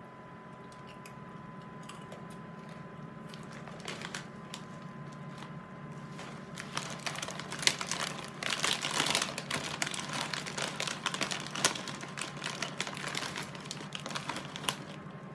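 Snack bag of pretzels crinkling and crackling as a hand rummages inside it and pulls out a pretzel. The rustling starts a few seconds in, is densest and loudest in the middle, and dies down near the end.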